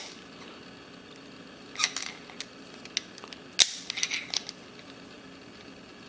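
Scattered light metallic clicks and scrapes of a screwdriver being worked in the keyway of a Best 7-pin interchangeable-core padlock that has been picked to its control shearline. A few clicks come about two seconds in, then one sharper click a little past halfway, then a few more just after.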